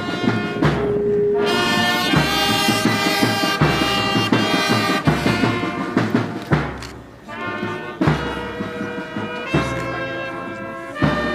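Slow brass band music: sustained horn notes over a low drum beat about every one and a half seconds.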